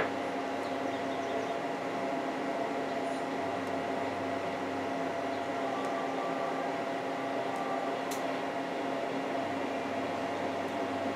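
Steady mechanical hum holding several constant tones, with a brief click right at the start.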